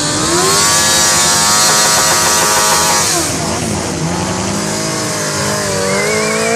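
Sport motorcycle engine revved hard and held high while the rear tyre spins and screeches on the tarmac in a burnout. About three seconds in, the screech fades and the revs drop; near the end the engine climbs again.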